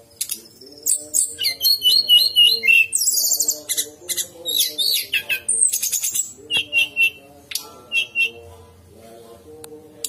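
Brown-chested jungle flycatcher (sikatan rimba dada coklat) singing: quick runs of high whistled notes and chattering phrases with short pauses between them. Busiest in the first half. A lower steady tone sounds on and off behind the song.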